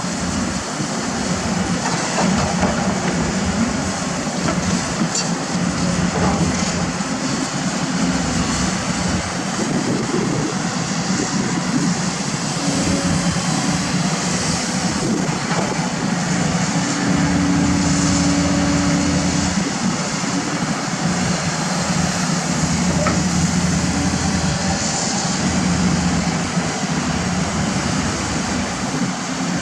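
Diesel engines of heavy tracked construction machinery running steadily under load, the pitch shifting now and then, with scattered metallic clanks.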